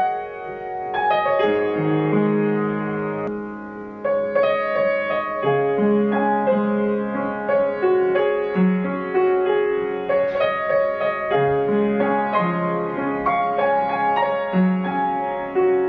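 Upright piano played slowly: a gentle melody over lower held notes.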